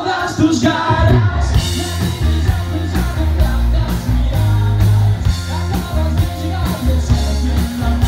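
Live rock band playing loud: a man singing over electric guitar and electric bass, with a steady beat and heavy bass.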